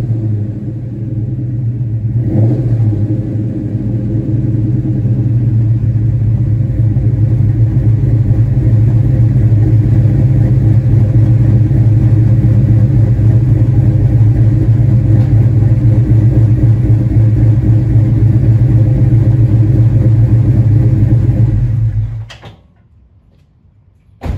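Mustang GT's 4.6-litre two-valve V8 with aftermarket street-performance camshafts, idling at a steady speed through catalytic converters and chambered mufflers with a choppy cam idle. The engine sound cuts off suddenly about 22 seconds in.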